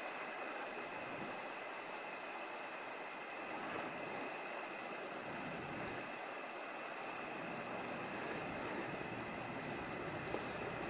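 A chorus of night insects: several high, steady trills, one of them pulsing in a repeating chirp.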